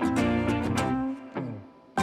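Background music with a rhythmic instrumental backing that fades out about a second in, leaving a short quiet gap near the end.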